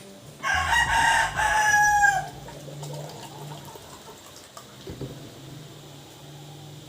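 A rooster crows once: a single loud call of about two seconds, starting about half a second in and dipping in pitch at its end.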